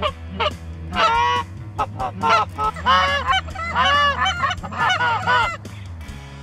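Canada geese honking: a quick run of repeated honks that thickens from about a second in and stops about five and a half seconds in.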